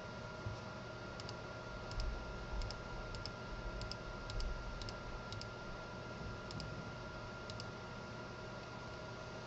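A computer mouse clicking: about a dozen short, sharp clicks, most in quick pairs of button press and release, spread through the first three-quarters and then stopping. Underneath is a steady hum with a faint constant whine.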